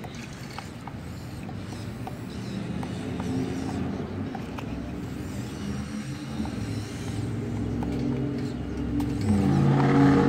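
Radio-controlled toy excavator working its arm and bucket: a whir of small electric motors and gearboxes whose pitch shifts as the movements change, growing louder near the end.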